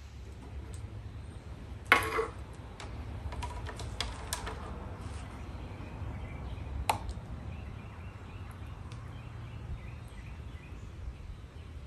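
Metal paint can, lid and opener being handled on a table: a sharp clack about two seconds in, a few lighter clicks around four seconds and another clack near seven seconds, over a steady low background rumble. Faint bird chirps in the later part.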